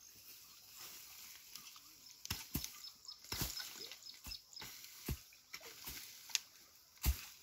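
Hand hoe chopping into dry, weedy soil: a string of irregular strikes about once a second, with scraping and rustling of dry grass between them.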